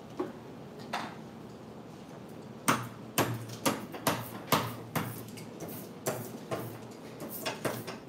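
A hand ink roller worked back and forth over a mimeograph printing frame, clacking about twice a second. Before that there are two light taps.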